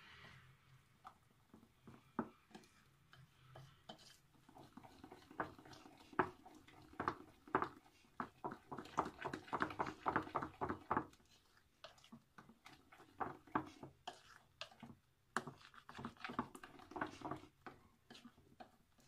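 Wire hand whisk beating thick cake batter in a mixing bowl: soft wet stirring with scattered clicks and taps of the wires against the bowl, quickening into a flurry of fast strokes about halfway through.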